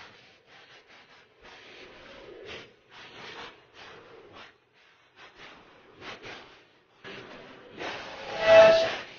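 A person's breathing, short irregular breaths, with one loud voiced sound about a second before the end.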